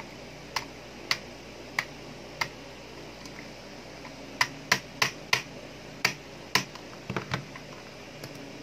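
Sharp knocks from striking the butt of a screwdriver used as a punch to drive a metal pin out of a Glock 18 airsoft pistol's slide. Four taps come about half a second apart, then a quicker run of about seven.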